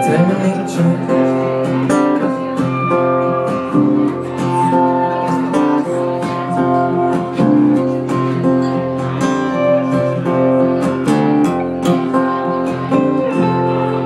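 Live instrumental guitar music: an acoustic guitar strummed steadily with a second guitar playing along, with no singing.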